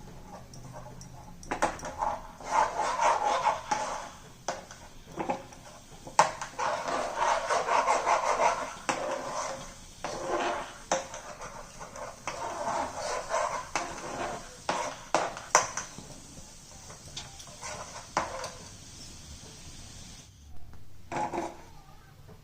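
A spoon scraping and knocking irregularly against a pan while stirring jaggery as it melts into its water, with short pauses between bouts of stirring.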